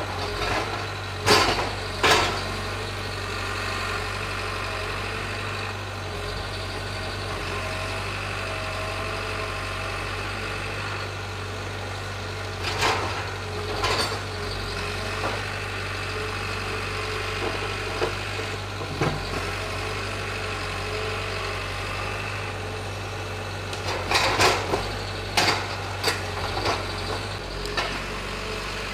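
John Deere 810E forwarder's diesel engine running steadily while its hydraulic crane works, with sharp knocks of logs striking the load: twice near the start, twice around the middle, and a quick run of them near the end.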